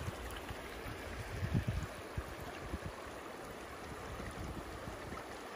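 Shallow river water flowing over a stony bed: a steady rush, with a few low bumps in the first couple of seconds.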